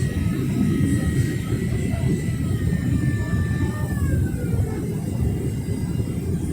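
Cabin noise of a Boeing 767-300ER in its climb: a steady low roar of the jet engines and airflow, with a thin high whine that falls a little in pitch and fades about four seconds in.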